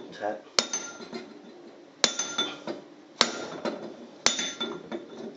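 Hammer striking a cold chisel against a brass central heating pump union nut: four sharp metallic blows about a second apart, each with a short ring. The blows give a shock to free a nut seized on by the heat.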